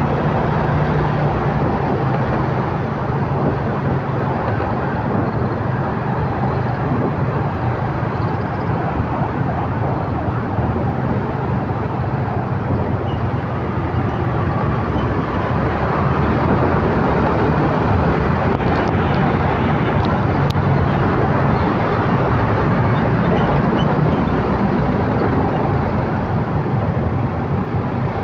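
Motorcycle running in city road traffic, heard from the rider's seat: the bike's engine hum mixed with the steady noise of surrounding cars, motorcycles and a truck.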